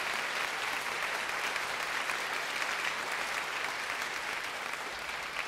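Studio audience applauding steadily, the clapping easing off slightly near the end.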